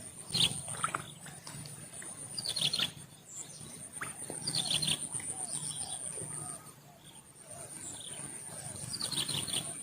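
A bird calling a short phrase of several quick falling chirps, repeated about every two seconds, over a steady, very high-pitched insect trill.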